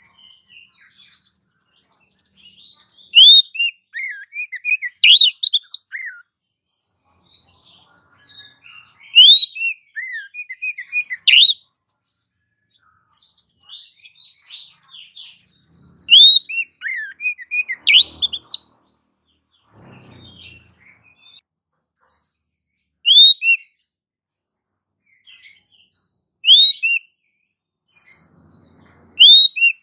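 Bird-lure recording of mixed small birds' calls: high chirps and quick rising and falling whistled notes, in loud clusters every few seconds.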